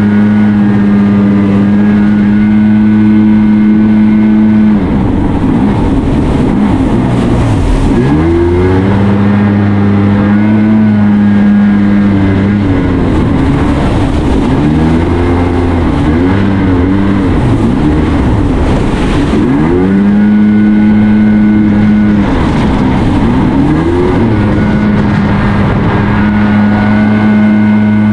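Watercraft engine running at a steady pitch, then revved up and down in bursts of rising and falling pitch three times as it manoeuvres, settling back to a steady pitch in between.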